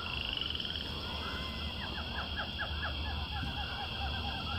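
Birds chirping outdoors, a run of short quick notes repeated through the middle, over a steady high-pitched trill in the background.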